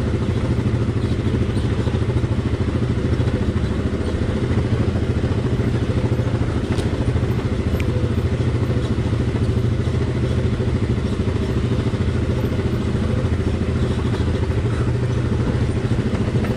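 ATV engine running steadily at low revs as the quad creeps downhill over rough, rocky trail, with a few faint clicks and rattles from the machine.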